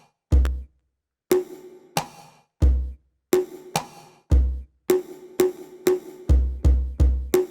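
Electronic drum sounds triggered by hand strikes on a MIDI drum pad, switching between three different sounds: a deep low bass hit and brighter, ringing higher hits. About two hits a second, with three low hits in quick succession near the end.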